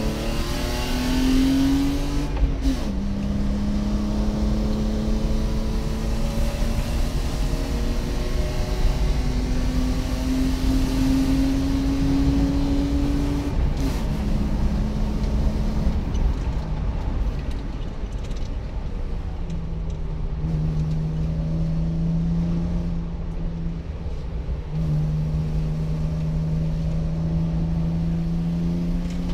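BMW E36 320i's 2.0-litre 24-valve straight-six pulling hard under racing load, heard from inside the car over road and wind noise. The revs climb and drop at gear changes about 3 and 14 seconds in. From about 16 seconds the engine note falls lower and then holds steadier.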